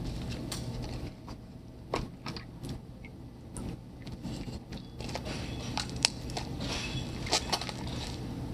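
Homemade slime being squeezed and kneaded by hand, wet with hot water and lotion: irregular small squelches, clicks and crackles, busier in the second half.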